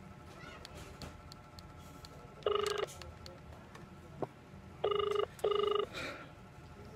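Ringback tone of an outgoing mobile phone call heard through the phone's loudspeaker while the call rings out: one short buzzy tone, then about two seconds later two more in quick succession.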